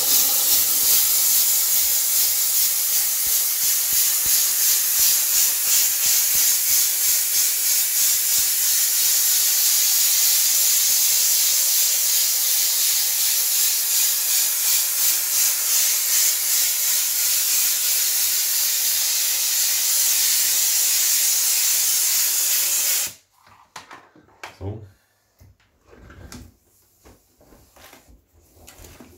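Kärcher steam cleaner blowing a jet of steam through its pointed high-output nozzle onto greasy kitchen cabinet fronts: a loud, steady hiss with a fine, even pulsing. The hiss cuts off abruptly about 23 seconds in, leaving a few soft knocks.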